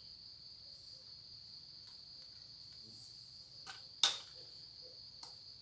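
Insects trilling steadily in one unbroken high-pitched drone, with a few short sharp clicks, the loudest about four seconds in.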